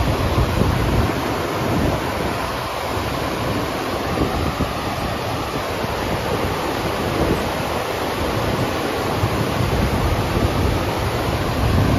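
FlowRider surf simulator's pumped sheet of water rushing steadily up its ramp, with wind buffeting the microphone in low gusts at the start and near the end.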